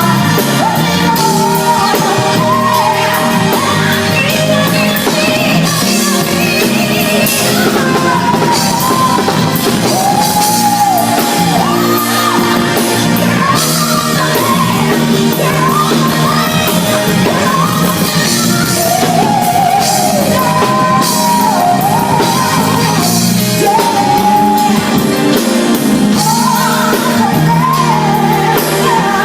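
Live band with drums playing behind a singer who holds and bends long melodic notes.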